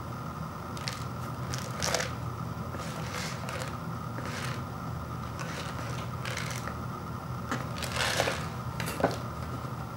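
Hands turning a paper instant-noodle bowl, giving short scratchy rubbing and crinkling sounds every second or two, over a steady low background hum.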